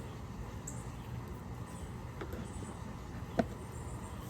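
Honey bees humming steadily around an open hive, with a single faint knock about three and a half seconds in.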